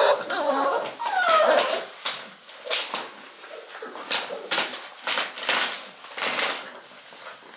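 Six-week-old shar-pei puppies whimpering, two short falling whines in the first second and a half, followed by a run of scuffling and clicking as their paws move over the floor and newspaper.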